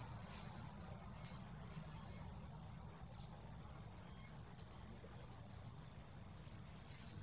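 Steady, high-pitched drone of insects trilling without a break, over a low rumble.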